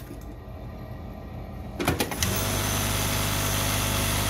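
JUKI LBH-783 industrial buttonhole sewing machine. It hums faintly at first, gives a few clicks about two seconds in, then sews a buttonhole at high speed with a steady, even machine hum.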